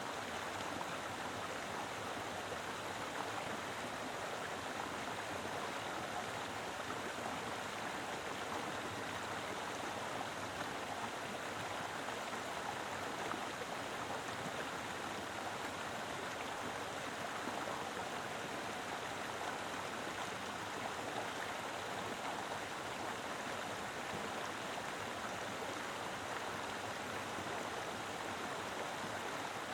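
Mountain river flowing steadily, an even rush of water over stones.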